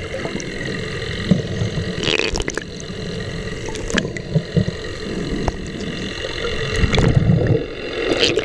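Muffled sound heard underwater: a steady hum of a boat engine carried through the water, with low gurgles and a few sharp knocks.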